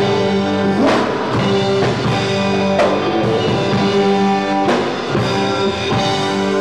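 Live rock band playing loudly: drum kit, electric guitars and electric bass, with held chords and a few sharp accented hits.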